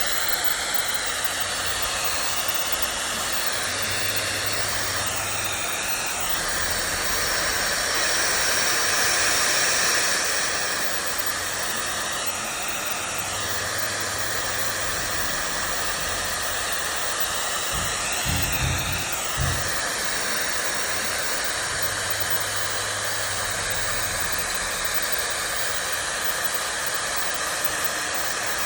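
A hair dryer running steadily, a loud rushing of air whose tone shifts slightly now and then. A few low thumps a little past halfway.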